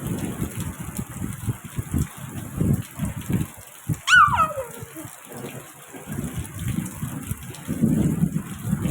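Heavy rain with low, uneven thunder rumbling. About four seconds in comes a single short whine that drops steeply in pitch, from an animal.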